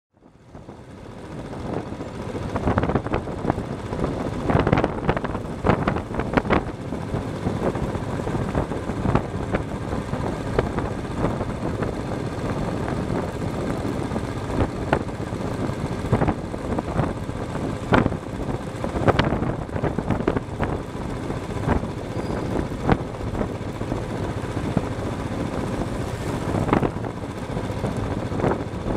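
Road vehicle on the move: steady road and wind noise with frequent irregular sharp knocks and rattles, fading in over the first second or so.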